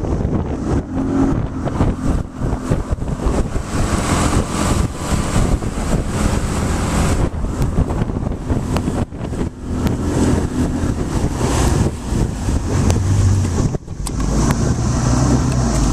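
Mercury 40 hp outboard motor running steadily, under heavy wind buffeting on the microphone.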